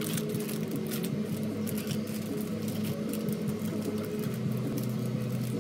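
Plastic-wrapped pastries being set down into paper boxes: wrapper crinkling and light taps, many in quick succession, over a steady low hum.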